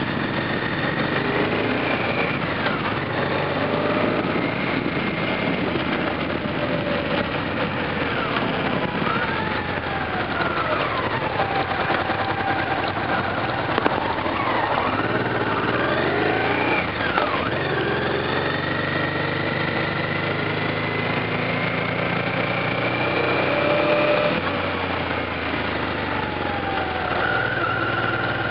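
Motorcycle engine heard on board while riding, its pitch rising and falling several times as the rider speeds up and slows, with a long slow rise in the second half, over a haze of wind and road noise.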